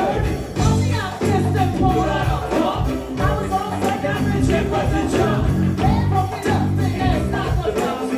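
Live go-go band music: drums and hand percussion keep a steady, even beat over a bass line.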